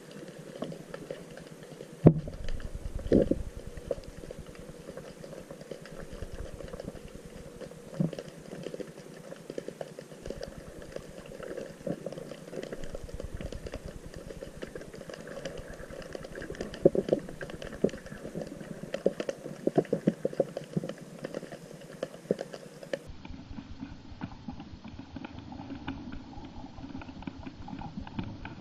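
Underwater crackling: a dense, irregular patter of small clicks heard through an underwater camera, with a couple of louder knocks in the first few seconds.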